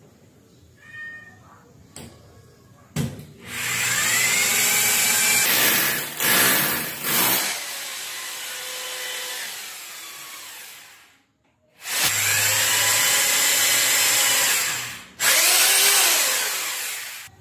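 Corded power drill boring holes into the wall for cabinet mounting brackets. After a few quiet seconds it runs for about seven seconds, with a couple of short trigger pulses partway through, then winds down. It starts again a second later and runs for about five more seconds.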